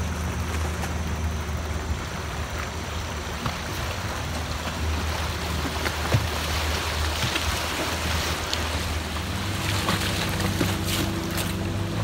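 Outboard engine of a wooden longboat running steadily as a low hum, over the rush of a swollen, fast-flowing river.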